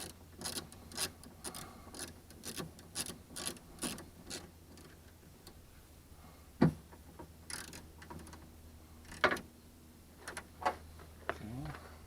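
Socket ratchet clicking in short strokes, about two clicks a second, as a door-handle mounting nut is run onto its stud; the clicks thin out after a few seconds, with a couple of sharper metallic knocks in between.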